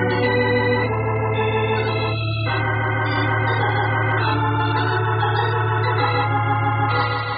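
Organ music bridge marking a scene change in the radio drama: sustained chords that shift every second or two over a steady low held note.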